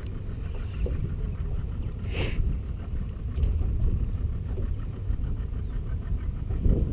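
Wind buffeting the action camera's microphone, a steady gusting low rumble, with a brief hiss about two seconds in.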